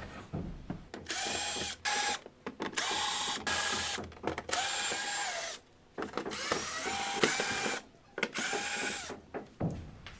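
Cordless power screwdriver backing screws out of a plastic TV back cover. It runs in about six short bursts of motor whine, each winding up and dying away, with brief pauses between screws.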